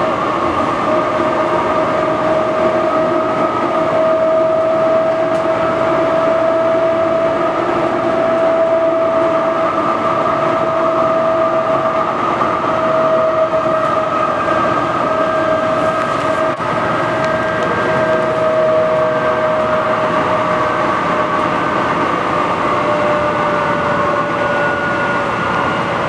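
Light rail train running, heard from inside the passenger car: a steady rumble with a whining tone whose pitch rises a little and then slowly falls.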